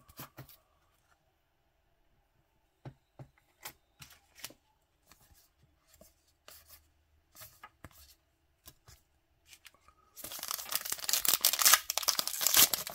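Scattered soft taps and clicks of trading cards being handled and set down. About ten seconds in, a baseball card pack's foil wrapper is torn open, with loud crinkling.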